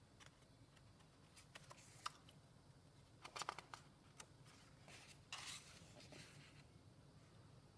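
Faint paper sounds from a paperback colouring book's page being turned by hand: a few light clicks, a crisp crackle of paper about three and a half seconds in, then a soft swish of the page turning over a couple of seconds later.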